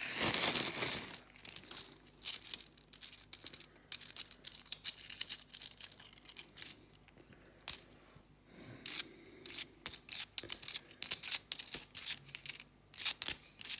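UK 50p coins clinking as they are tipped out of a bank bag and then slid off one another one by one in a palm: a dense jingle in the first second, then many short, sharp clicks.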